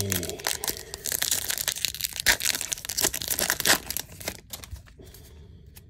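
Foil-lined wrapper of a 2022 Topps baseball hobby pack being torn open and crinkled by hand: a dense crackling for about four seconds that dies down as the cards are drawn out.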